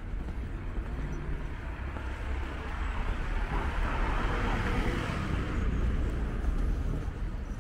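A car passing close by, its tyre and engine noise swelling to a peak about halfway through and then fading, over a steady low rumble of city traffic.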